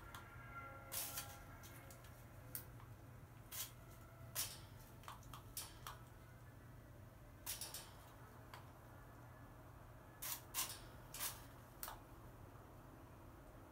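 A crow's beak pecking and biting into a whole apple: about a dozen short, sharp taps and crunches in irregular clusters, over a faint steady room hum.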